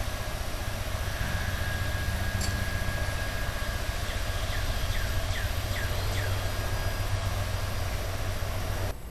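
Outdoor air-conditioner condenser unit running with a steady hum and fan drone. About halfway through, a run of half a dozen short, high, falling chirps is heard over it.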